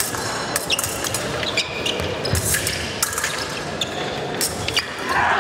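Épée blades clicking and clashing with short metallic rings, and fencers' feet knocking on the piste during a bout. Near the end the crowd breaks into loud shouting.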